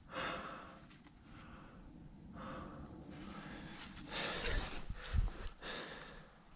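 A person breathing heavily, with several separate audible breaths, and a short low thump about five seconds in.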